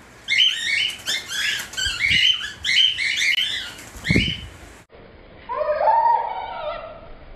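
Cockatiels chirping, a quick run of high calls several times a second, with a soft thump about four seconds in. After a short break there is a lower, drawn-out call.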